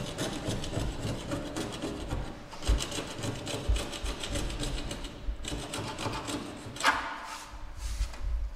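A hand scraper worked in quick, rhythmic strokes over old paint and filler on a car chassis, with a few dull knocks of the tool, uncovering a stamped body number; the strokes pause briefly past the middle and thin out near the end.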